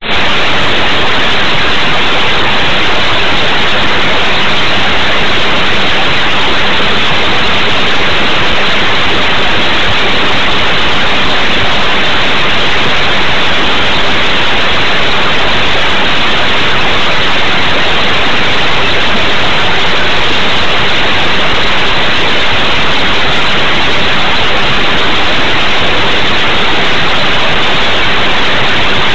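Loud, steady hiss of static, like white noise, with no change in it and no other sound.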